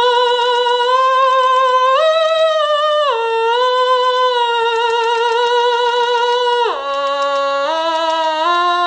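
Otamatone Deluxe played at full volume: a single electronic tone holding notes with vibrato, stepping up about two seconds in, back down about a second later, then dropping to a low note about seven seconds in and climbing again in small steps.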